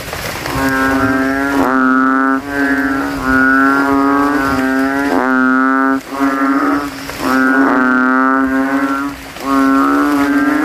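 A chorus of kodok kintel, narrow-mouthed bullfrogs of the genus Kaloula, calling loudly in a rain-filled puddle. The males give drawn-out calls about a second long, one after another with hardly a gap, each trying to be loudest.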